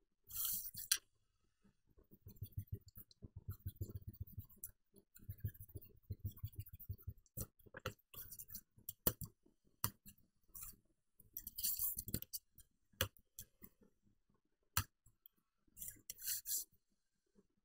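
Pencil drawn along the edge of a computer keyboard used as a ruler on paper: two scratchy rubbing strokes of about two seconds each early on. Then scattered light clicks and knocks, with short rustles of the paper sheet being shifted.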